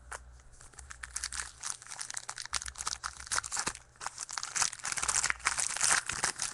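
Trading-card pack wrapper being torn open and crinkled by hand, an irregular run of crackles that grows denser and louder from about four seconds in.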